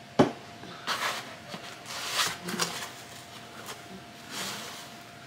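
A cardboard box packed with drinking glasses being handled: a sharp knock just after the start, then several short scraping and rustling noises as the box and its insert are moved.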